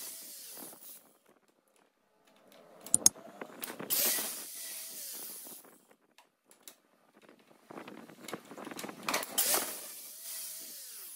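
Angle grinder with its disc grinding a steel bar held in a vise: two passes of harsh, high hiss, about four seconds in and again from about eight seconds, with the motor's whine dropping in pitch as it spins down near the start and near the end.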